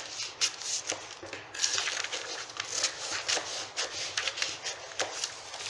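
Scissors cutting through stiff kraft pattern paper: a run of snips, about three a second.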